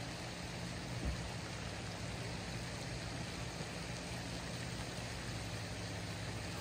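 Steady outdoor background hiss with a low, even hum underneath and a faint thump about a second in.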